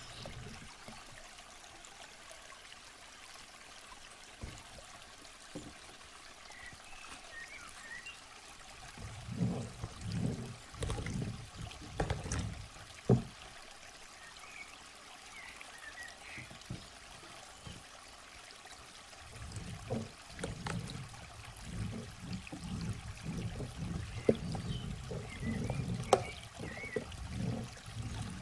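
Water beads shifting and spilling as a plastic toy net scoops and stirs through them in a plastic bin. The stirring comes in bursts, first about a third of the way in and again through the last third, with a sharp click near the middle.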